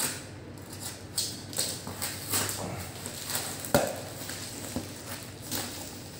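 Cardboard box wrapped in packing tape being torn open by hand: a run of irregular ripping and crackling bursts, with one sharper crack just under four seconds in.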